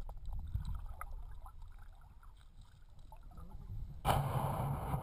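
Underwater ambience picked up by a submerged camera in shallow water: a low rumble of moving water with faint scattered clicks. About four seconds in, a sudden, louder rushing noise takes over.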